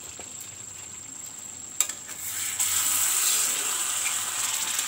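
Chicken and potato curry sizzling in an iron kadai, faint at first, with a sharp click about two seconds in, then louder as a spatula stirs it and the juices the chicken released cook down.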